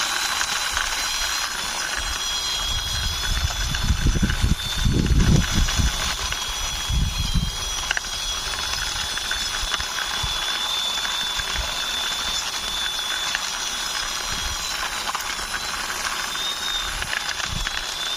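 Toy army jeep pushed along by hand, its wheels and internal gearing whirring with a steady high whine and a fast ratcheting rattle, with a few dull knocks a few seconds in.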